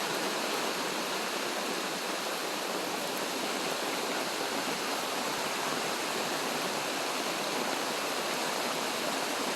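Heavy rain falling in a steady downpour, an even hiss with no letup.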